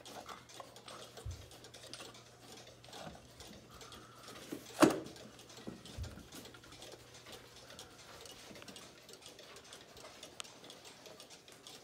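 Mechanical cuckoo clock ticking as it hangs on the wall, with handling noises from a hand on the clock case: a sharp knock about five seconds in and dull thumps just after one second and near six seconds.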